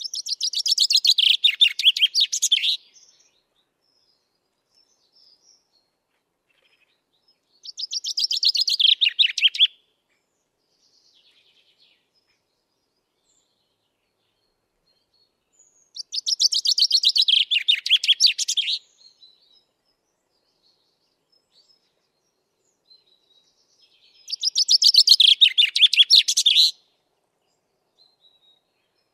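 Chaffinch singing: four song phrases, each a fast run of notes about two and a half seconds long that falls in pitch, repeated every eight seconds or so with silence in between.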